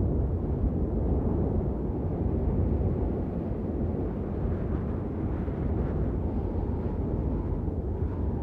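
Steady low rumbling outdoor ambience of a snowfall recording, mostly wind on the microphone, with no distinct events.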